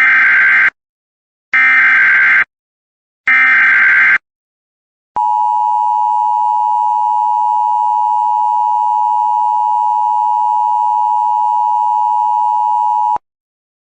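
Emergency Alert System header: three short, screechy digital data bursts, followed by the EAS attention tone held steady for about eight seconds and then cut off sharply. Together they mark the start of a new tornado warning broadcast.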